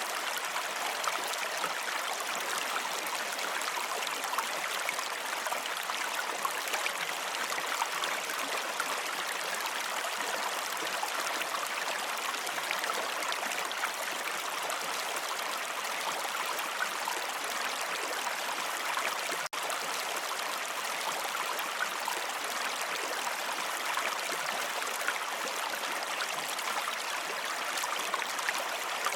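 Steady rush of running water, like a stream, with a momentary drop-out about two-thirds of the way through.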